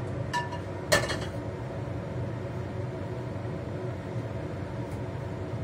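Cookware clinking: a short ringing clink, then a sharp metal knock about a second in as the frying pan is handled and set back, over a steady low hum.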